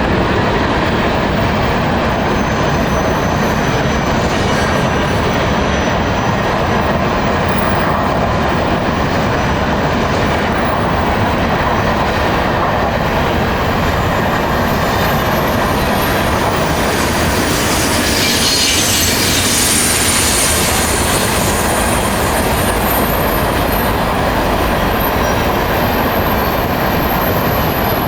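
Canadian National freight train's cars rolling past on the main line: a steady, loud rumble of wheels on rail, with thin high-pitched wheel squeals coming and going, most of all in the second half.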